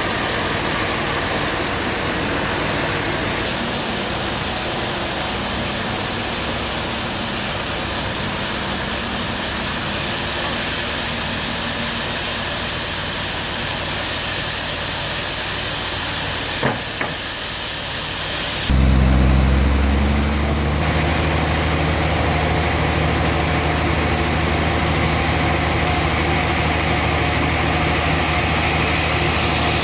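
Steady mechanical noise, then about two-thirds of the way in an engine starts suddenly and runs on with a steady low hum.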